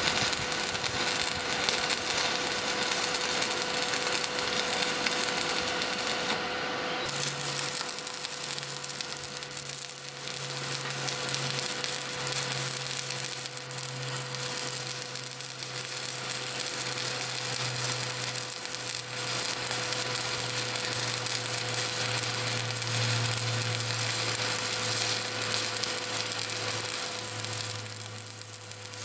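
Stick arc welding on steel angle iron: the arc crackles and sizzles steadily. Its upper hiss drops out briefly about seven seconds in, and a low hum runs underneath from then on.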